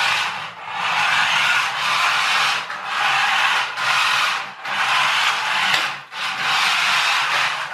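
Radio-controlled toy pickup truck driving on a wooden floor: its small electric motor and gear drive run with a rasping whirr, broken by short breaks about every second or two.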